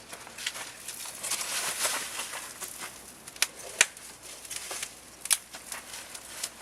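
Wood campfire crackling, with a few loud sharp pops.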